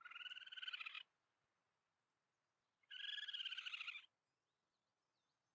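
Raccoon trilling call, heard twice: two rapidly pulsing, chittering calls, each about a second long, the second following nearly two seconds after the first ends.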